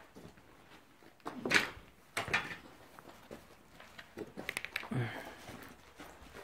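Footsteps and scuffs on a floor strewn with dirt and rubble: a few separate steps and scrapes, a quick run of small clicks, and a dull thump about five seconds in.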